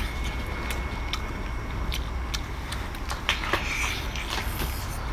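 Close-up eating sounds: scattered sharp clicks and crunches as seafood is bitten and chewed, over a low steady hum.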